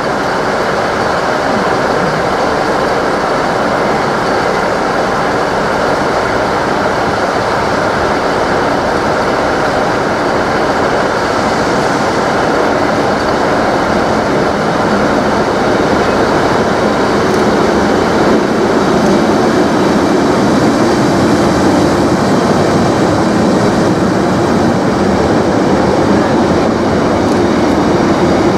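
Class 90 electric locomotive hauling a container freight train past with a steady, loud rolling rumble. After the locomotive passes, a steady drone grows in and the sound gets a little louder as the loaded container wagons roll by.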